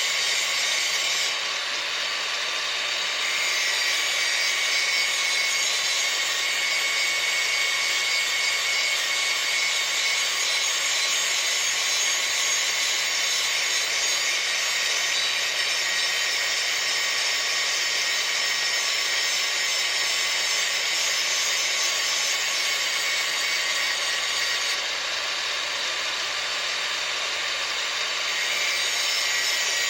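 Handheld grinder running steadily, grinding the cutting edge of a steel lawn mower blade to sharpen it, with a steady high whine over the grinding hiss. The sound eases off briefly twice, about two seconds in and again near the end.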